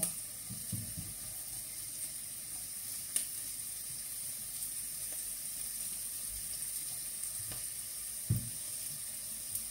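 Chopped onions and carrots sizzling steadily as they fry in sunflower oil in a heavy-bottomed pot, stirred with a silicone spatula, with a couple of light knocks.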